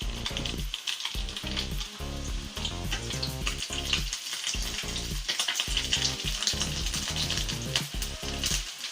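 Flautas frying on the stove: a steady crackling sizzle of many fine pops.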